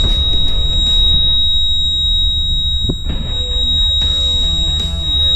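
Steady high-pitched buzzer tone from a free-fall lifeboat's engine control panel, signalling that the ignition is on and the engine is ready to start. Background music plays under it.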